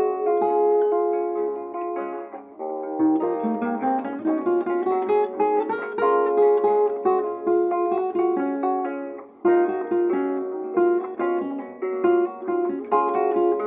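Acoustic guitar being played, picked notes and chords ringing in a flowing melody, with short pauses between phrases about three and nine seconds in.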